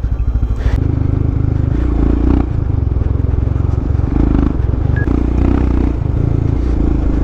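Royal Enfield Himalayan's single-cylinder engine running at low speed on a bumpy dirt track, its steady low thump swelling and easing every second or two as the throttle opens and closes.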